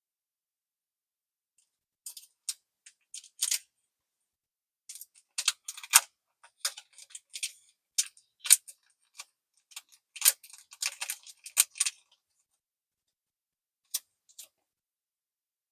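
Plastic card sleeves and mini portfolio pages being handled: scattered light clicks and crinkly rustles, coming in clusters with short pauses and a couple of last clicks near the end.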